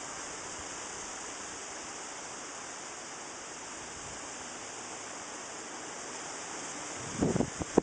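Steady outdoor background hiss, with a few short rustling crackles and a sharp click near the end.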